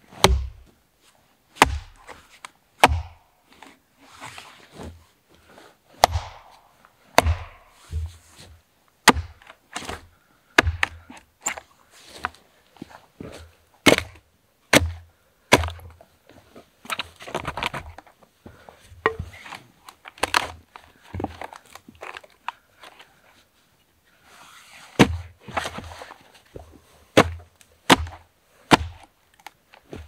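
Axe chopping and splitting a dead log: about twenty sharp blows, each with a dull thud, coming irregularly a second or so apart, with wood cracking between some of them and a short pause a little after two-thirds of the way through.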